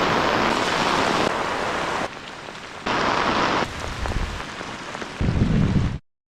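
Heavy rain falling, in several short stretches that change abruptly in loudness and tone, with a deep rumble near the end before it cuts off suddenly.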